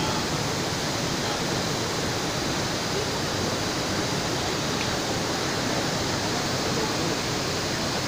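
Steady rushing of a fast river running over rapids below a waterfall, an even wash of water noise with no breaks.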